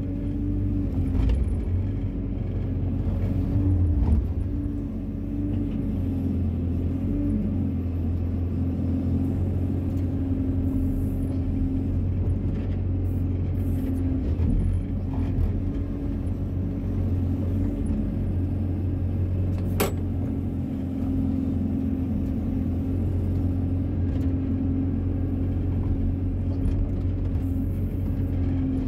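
Wheeled excavator's diesel engine running steadily, with its hydraulics working the arm and bucket as it digs a trench, heard from inside the cab. A single sharp click about two-thirds of the way through.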